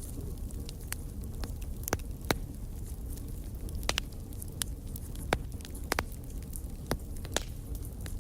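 Campfire burning with irregular sharp crackles and pops over a steady low rumble of the flames, one louder pop about two seconds in.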